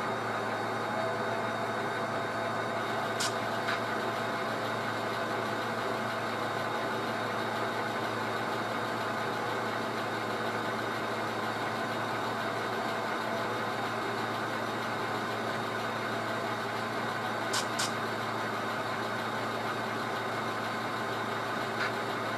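Engine sound from the speakers of two sound-equipped HO scale EMD Geep diesel models, running steadily under load as they pull a long string of cars. A few sharp clicks come a few seconds in and again near the end.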